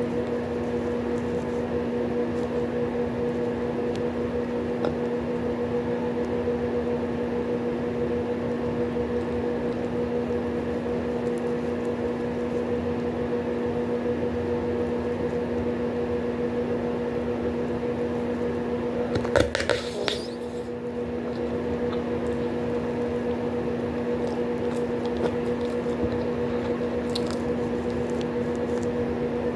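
Bubblegum being chewed close to the microphone, wet squishing and smacking, over a steady low hum. About twenty seconds in a blown gum bubble pops with a short, louder snap.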